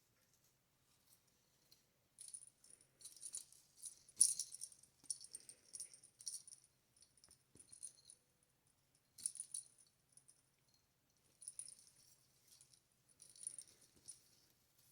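Christmas tree decorations jingling and rattling in irregular bursts as a cat bats and climbs among them, with a faint low purr underneath.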